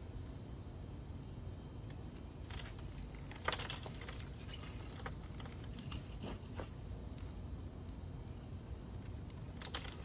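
Chunky potting mix being handled and pressed into a pot: a few scattered soft rustles and clicks, the loudest about three and a half seconds in, over a steady background.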